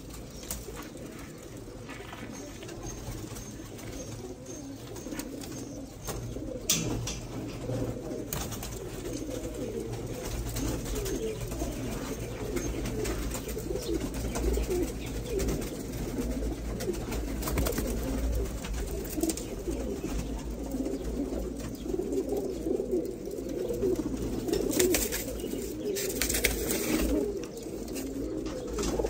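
A flock of Giribaz pigeons cooing in their loft: many coos overlap into a continuous, steady murmur. A few sharp knocks stand out, about 7 and 8 seconds in and again near the end.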